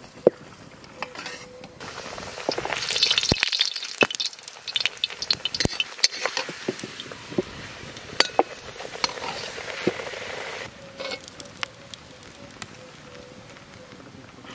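Spinach puri deep-frying in hot oil in an iron kadai: a sizzle that starts about two seconds in and dies down a little after ten seconds, with a metal spoon clinking and scraping against the pan.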